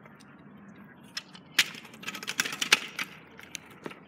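Kick scooter clattering on a concrete driveway: a run of sharp, irregular clicks and knocks from the wheels and deck, thickest in the middle.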